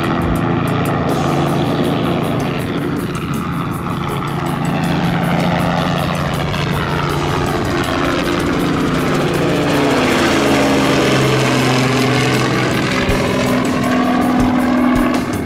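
Small two-bladed piston helicopter flying past overhead, its engine and rotor running steadily with a rapid blade chop. The pitch slides and the tone sweeps with a phasing whoosh as it passes.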